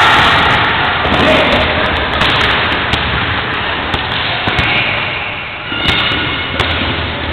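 Loud crackling noise of a busy gym, with a few sharp knocks about three, four and a half, and six seconds in, and faint voices.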